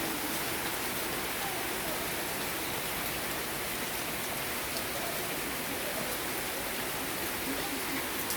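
Heavy rain falling steadily, a dense even hiss of drops pouring down on surfaces.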